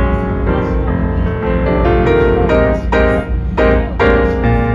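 Background music led by piano, one note after another in a steady flow.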